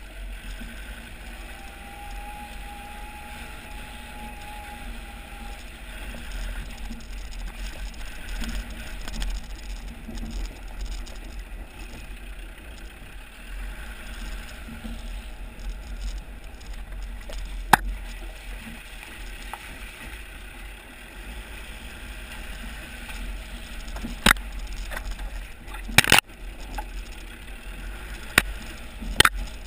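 Land Rover Discovery TD5, a five-cylinder turbodiesel, creeping along a rough dirt-and-stone track: a steady low rumble of engine and tyres on loose ground, picked up by a camera mounted low beside the front wheel. Several sharp knocks come in the last third, the loudest about four seconds from the end.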